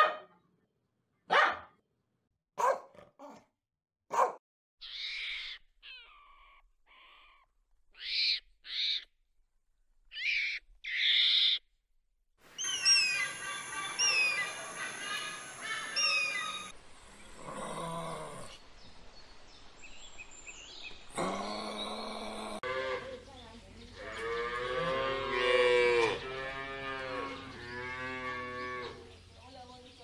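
A run of animal calls: a puppy's sharp barks, four within the first few seconds, then assorted short calls and chirps, and near the end a cow mooing in several long, deep calls.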